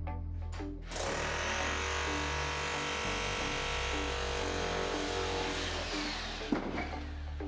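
A power tool with a whining motor, like a drill, runs steadily for about five seconds over background music, then stops with a brief knock.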